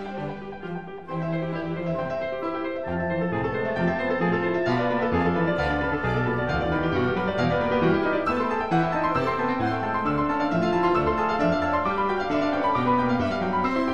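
Classical music on solo piano: a busy passage of many quick notes over a moving bass line, growing a little louder about a second in.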